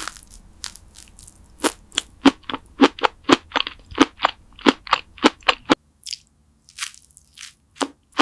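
Close-miked mukbang eating sounds: a rapid run of crisp crunching bites and chewing, about three or four a second, that stops short about six seconds in, followed by a few scattered softer crunches.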